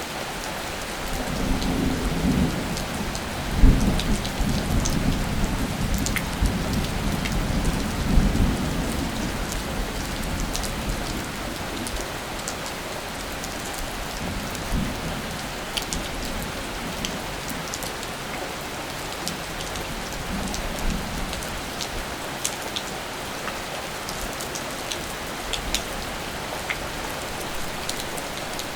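Steady rain falling, with scattered drops ticking on surfaces. About a second in a low rumble of thunder builds, with two louder peaks, then fades away by about ten seconds, and fainter low rumbles return briefly later.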